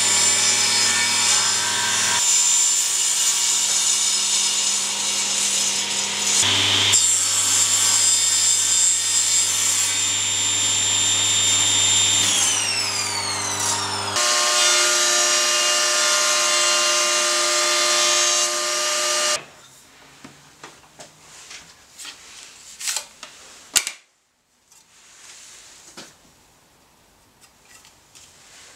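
An electric table saw runs with a steady motor hum and whine, then winds down with a falling whine. A second machine sound runs on and stops abruptly about two-thirds of the way through. The rest is quieter hand work on wood: scraping and light knocks.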